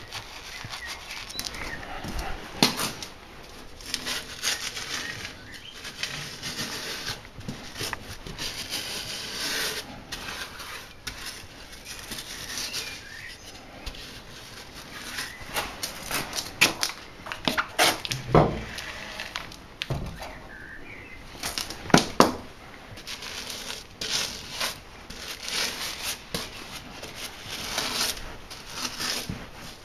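A tire being worked onto a rim by hand on a manual tire changer: irregular rubbing and scuffing of rubber, with scattered knocks. The loudest are two sharp knocks close together about two-thirds of the way in.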